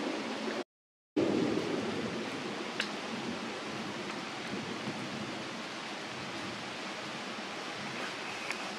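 Steady outdoor background hiss with no clear source, cutting out completely for about half a second just under a second in, with a few faint clicks.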